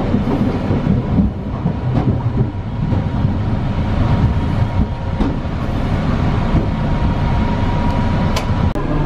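Streetcar running, heard from inside the car: a steady low rumble of wheels on rail with a faint steady high whine, and a few sharp clicks, two of them near the end.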